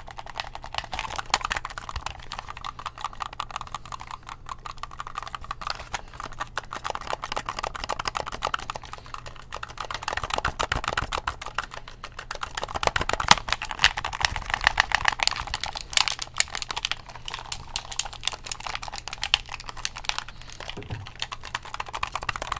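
Rapid button clicking on an Xbox One game controller: a dense, continuous run of sharp plastic clicks, many a second, growing busier and louder around the middle.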